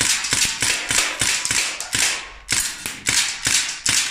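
Crosman SBR CO2 BB rifle firing rapid semi-automatic shots, about three a second, each a sharp crack with a short gas hiss as the blowback action cycles.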